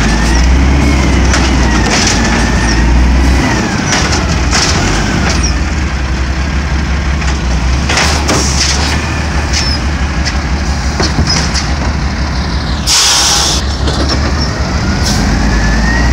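Automated side-loader garbage truck dumping recycling carts: the diesel engine runs under load while the hydraulic lifting arm works with a rising and falling whine, and the cart and falling recyclables make repeated knocks. About 13 seconds in there is a short, loud burst of air hiss.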